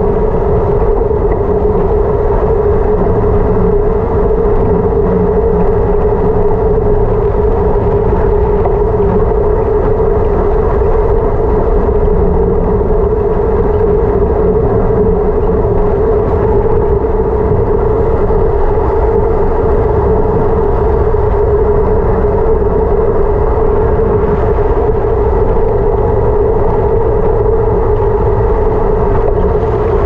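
Steady, loud rush of wind over a handlebar-mounted camera on a fast downhill ride, with tyre and road noise underneath and a constant hum throughout.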